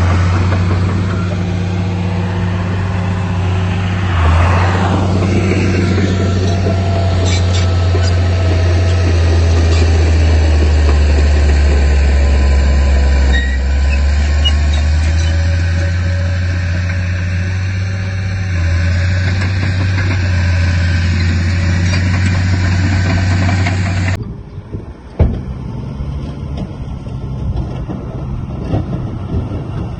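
Heavy diesel engine running steadily with a deep hum, its pitch wavering slightly. Toward the end the sound cuts abruptly to a quieter engine, and a single sharp knock follows.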